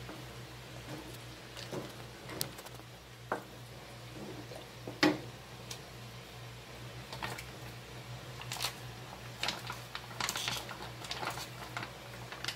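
A spatula stirring thick spaghetti sauce in a nonstick pan: wet squishing with irregular scrapes and knocks against the pan, the sharpest about five seconds in and more frequent in the second half, over a steady low hum.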